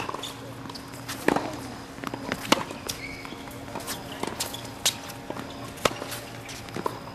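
Tennis balls struck by rackets and bouncing on a hard court during a rally: a string of sharp pops about every second or so, spaced unevenly.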